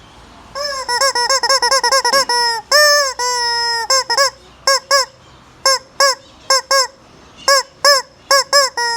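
Rubber screaming-chicken toy squeezed over and over, giving loud honking squawks: a quick run of short squawks, two longer drawn-out ones about two and a half seconds in, then single squawks at intervals.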